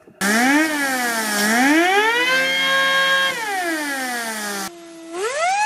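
Lego vacuum-driven turbine whining at high speed, its pitch rising and falling twice as its speed changes, then holding steady. After a sudden break near the end, it spins up quickly to a higher steady whine.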